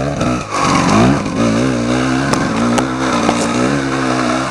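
Two-stroke enduro motorcycle passing close and riding off. The engine revs up about half a second in, then its pitch rises and falls as the throttle is worked.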